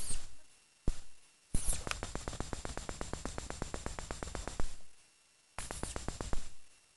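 Rapid, evenly spaced clicking, about ten clicks a second, in two spells of roughly three seconds and one second, with a sharp single click and a brief fading burst before them.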